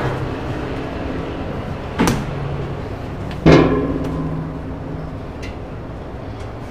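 Two metallic knocks from the spiral dough mixer as the finished dough is taken out, about two seconds in and again a second and a half later; the second is louder and rings briefly. A steady machine hum runs underneath.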